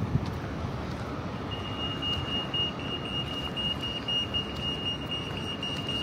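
Steady rush of city traffic, with a high, steady electronic tone starting about a second and a half in.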